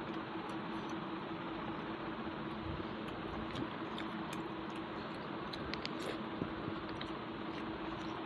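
Fingers mixing rice and curry on a steel plate, with scattered light clicks and faint chewing, over a steady hiss with a low hum.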